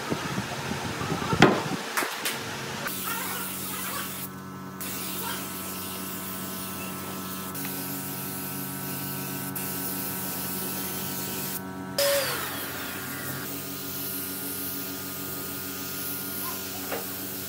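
Pneumatic spray gun hissing steadily as it sprays finish onto wood, with a steady hum underneath. The hiss drops out briefly twice. Near the start there is a sharp knock.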